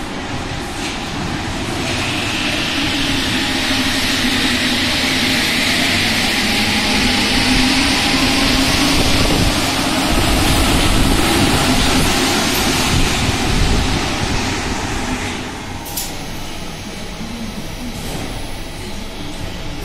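Lyon metro line A MPL 75 train arriving at a platform: rumble and hiss build as it runs in, with a low motor whine, then die down as it brakes to a stop about three-quarters of the way through, followed by a single short, sharp sound.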